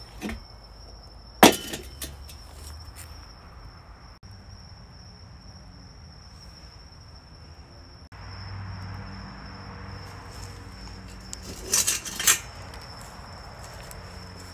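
A cricket chirps steadily throughout. About a second and a half in, the metal charcoal chimney is set down onto its lit starter with a loud clank, and near the end there is a short rattling clatter.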